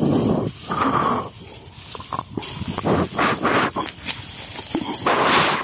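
Dry, cut rice straw rustling and crunching in irregular bursts as it is stirred or stepped through, with a louder burst near the end.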